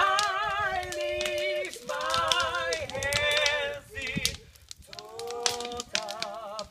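A voice making a series of long, wavering cries, each a second or two, with sharp crackling clicks throughout.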